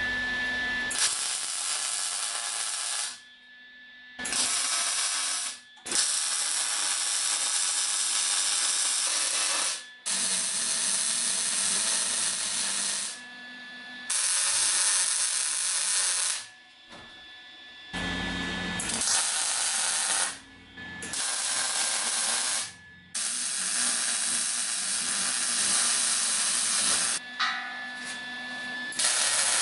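MIG welding arc crackling and hissing as a square steel tube is welded to a steel base plate, in about nine short passes of a few seconds each, stopping and starting with brief pauses between.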